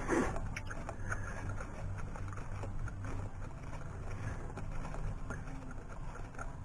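Steady low rumble with scattered small clicks and knocks from hand tools on the engine, and a brief sharp clatter right at the start.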